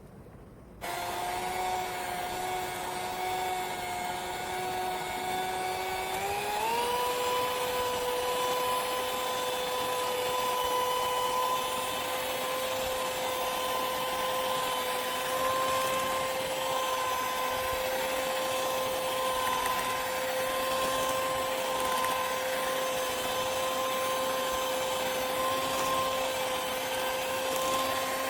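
Electric kitchen mixer motor running steadily with a whine. The whine starts about a second in, steps up to a higher pitch about six seconds in, and then holds.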